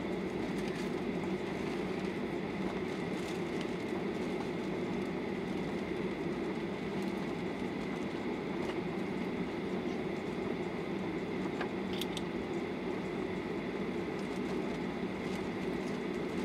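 Cabin noise inside a Boeing 737-800 moving along the runway: its CFM56-7B engines at steady power, a low rumble with a thin steady whine, the loudness holding level.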